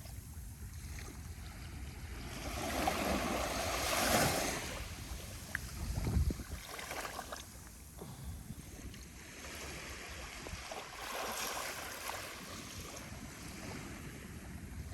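Small, gentle ocean waves washing onto a beach, with two swells of wash several seconds apart and a brief low rumble of wind on the microphone between them.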